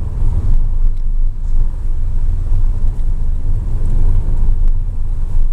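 Car driving, a steady low rumble of engine and road noise heard from inside the cabin, with a few faint ticks.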